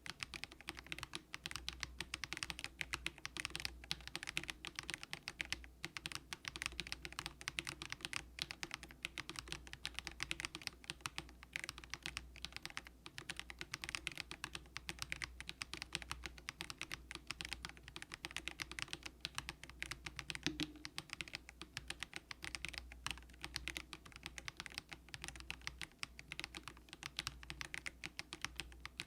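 Mechanical keyboard, the plastic-cased Monstar Gear Ninja87 with light, low-force Haimu Sea Salt switches, being typed on in a fast, continuous run of key clacks.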